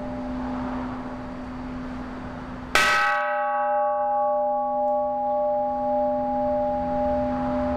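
Hanging bronze temple bell struck once with a hand-held striker about two and a half seconds in, over the lingering hum of an earlier strike: a sharp clang, then a long ring whose upper tones fade while the low hum wavers slowly in loudness.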